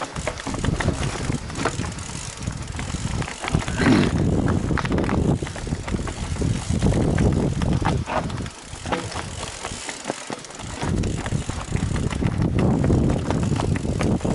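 Mountain bike riding over a dirt and stone trail: tyres rolling and crunching, with frequent knocks and rattles from the bike over bumps and a heavy low rumble of wind on the microphone. There is a short lull about nine to ten seconds in.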